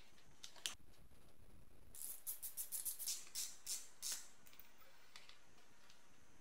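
A single sharp click, then a small stiff hand brush scrubbed in about ten quick strokes against the engine's cylinder head by the spark plugs.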